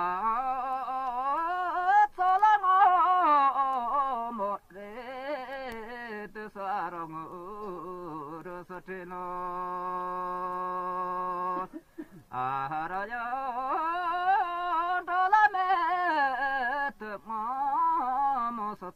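Background music: a single voice singing a slow, ornamented melody whose pitch wavers and bends, holding one long steady note about halfway through before starting a new phrase.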